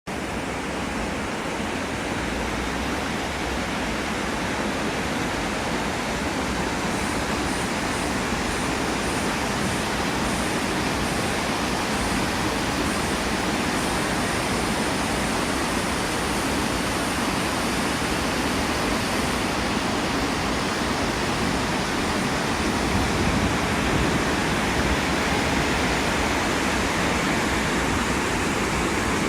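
Running water making a steady, even rush that does not change.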